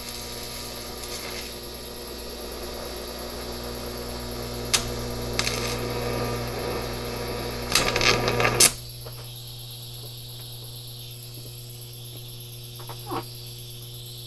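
TIG welding arc buzzing steadily while a nut is welded onto a broken exhaust stud in an aluminum cylinder head, with a few sharp crackles and then a burst of pops before the arc cuts off about eight and a half seconds in. The weld has blown a hole in the side of the nut. The welder's steady hum goes on after the arc stops.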